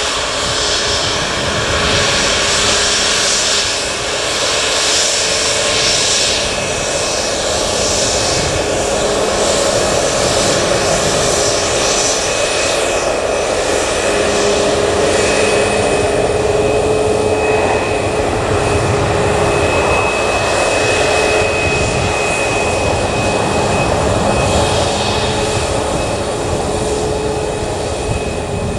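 Boeing 737 MAX 8 jet with CFM LEAP-1B turbofans taxiing: a steady jet engine whine with a hiss and a few held tones.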